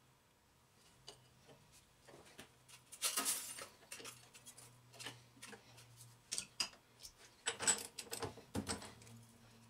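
Metal clicks and clinks of hand tools against a lathe's quick-change tool post while a tool holder is handled and clamped with a wrench, with busier clattering about three seconds in and again near the end.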